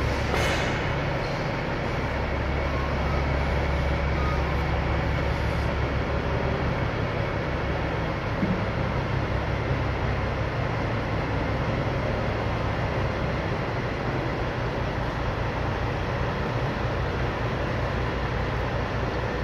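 A steady low mechanical rumble and hum under a constant even hiss, with no strokes or changes. A brief brighter hiss comes in right at the start.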